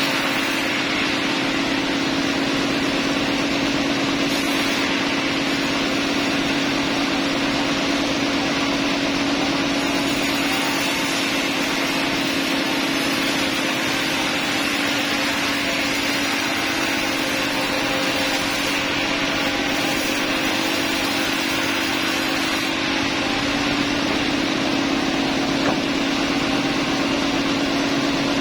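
Sawmill machinery running steadily: a constant engine-like hum with a broad hiss over it, unchanged in level throughout.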